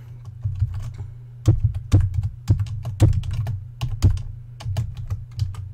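Computer keyboard typing: irregular keystrokes clicking in quick runs, over a steady low hum.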